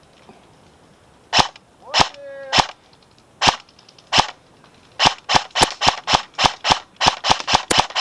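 Airsoft SVD-S rifle firing single shots: five spaced shots, then about a dozen in quick succession, roughly three to four a second.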